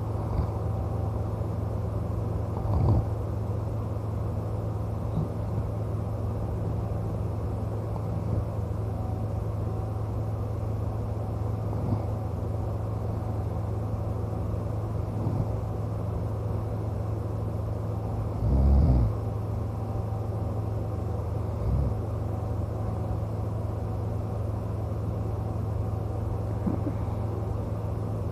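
A steady low hum with a few brief, irregular snores from a sleeping man; the loudest comes about two-thirds of the way through.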